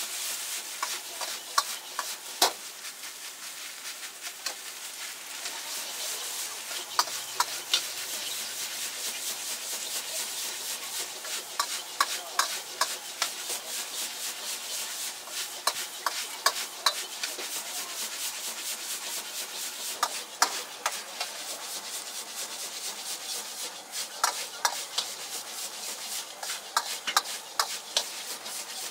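Egg fried rice stir-frying in a wok: a steady sizzling hiss, with frequent scrapes and clinks of a metal ladle and spatula against the wok as the rice is tossed.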